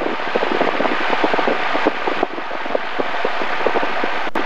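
Grumman single-engine light plane's piston engine and propeller running at taxi power, heard from inside the cabin as a steady drone with a rapid pulse. The sound drops away abruptly near the end.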